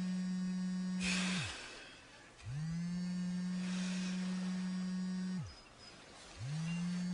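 Mobile phone on vibrate buzzing with an incoming call: long buzzes of about three seconds with short gaps between, each starting with a quick rise in pitch as the motor spins up and dropping away as it stops. Bedsheets rustle between the buzzes.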